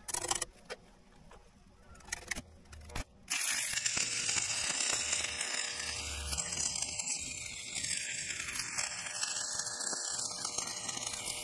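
Stick welder arc crackling and sizzling steadily as a half-inch steel grouser bar is welded onto a crawler track pad. The arc strikes about three seconds in, after a few light clicks, and runs on without a break.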